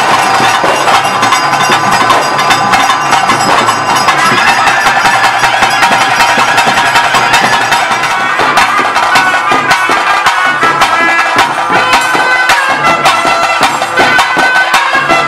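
Traditional folk music: a wind instrument playing over a held drone, with fast drum and wood-block strokes.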